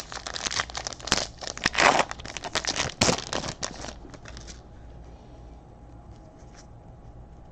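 Plastic trading-card pack wrapper being torn open and crinkled, a busy run of rustling and ripping for about four and a half seconds, then only faint handling ticks.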